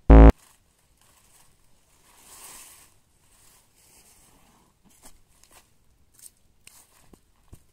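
Dry leaves rustling and crackling faintly as someone moves on the forest floor, the fullest rustle about two and a half seconds in, then small scattered crackles. At the very start a brief, very loud, deep buzzing tone cuts in and stops within a quarter of a second.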